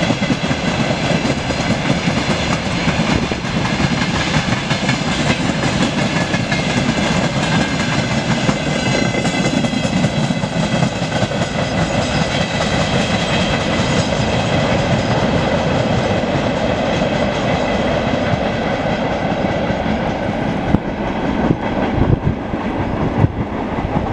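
Broad-gauge freight train of open wagons rolling past at speed: a steady rumble and wheel clatter with several steady high tones over it, thinning out near the end as the last wagons go by.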